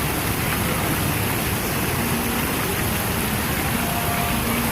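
Steady rushing of a waterfall, an even wash of water noise that never breaks.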